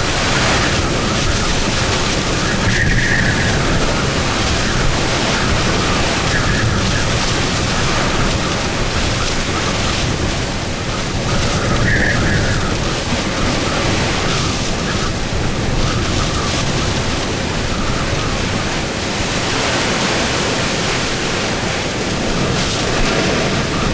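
Hurricane-force winds of a hurricane's back eyewall blowing at full force: a loud, steady rush of wind, with brief high whistles about three seconds in and again about twelve seconds in.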